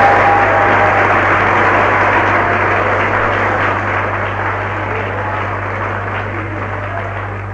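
Studio audience applauding, a dense spread of clapping that slowly dies down, over a steady low hum.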